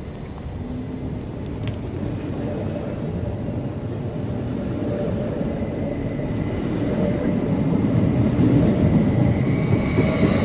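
Abellio Stadler FLIRT electric multiple unit running past close by on the platform track. Wheel and running noise grow steadily louder, with a faint steady hum above the rumble.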